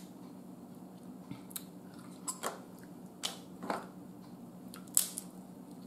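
Snow crab leg shells cracking and snapping as they are broken apart by hand: several short, sharp cracks, the loudest about five seconds in.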